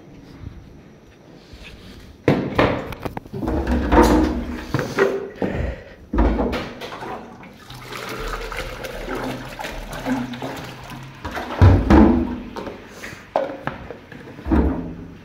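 Water pouring from a large plastic water-cooler bottle into a plastic jug, with several loud knocks and thumps as the bottle and jug are handled and set down on a tiled floor.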